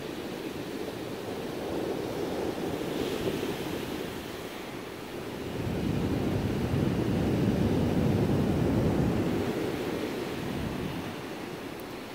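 Ocean surf washing on the beach, with wind on the microphone. It swells louder for a few seconds in the middle, then eases off.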